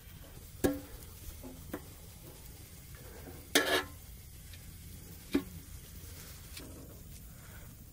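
Metal spoon clinking and scraping against a large metal pan as a pat of butter is pushed around to melt it. There are a few sharp clinks and one longer scrape about halfway through.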